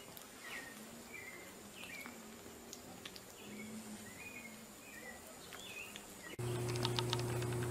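Faint, short, high chirping calls, about one or two a second. About six seconds in the sound switches abruptly to a louder steady low hum with a quick run of clicks.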